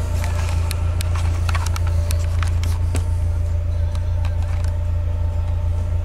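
Mazda MX-5 1.8 inline-four engine idling steadily, heard from inside the open cabin. Scattered light clicks sound over it in the first half.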